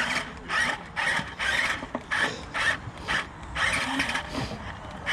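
Small electric drive motors and geared drivetrain of a JJRC Q137 8x8 RC skid-steer whirring in short stop-start bursts, about ten in five seconds, as it is driven on and off the throttle.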